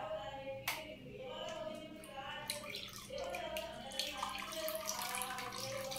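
Water trickling and splashing in a small home aquarium, the drips and splashes growing busier about halfway through, under a background song with a sung voice.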